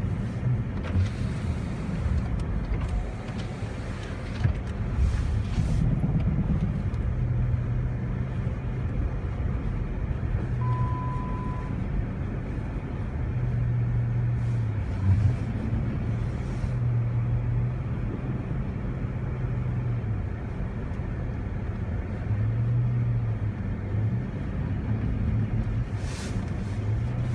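Jeep Commander driving, heard from inside the cabin: a steady low engine drone that rises and falls with the throttle, over tyre and road noise. A short single electronic beep sounds about eleven seconds in, and a few brief knocks come and go.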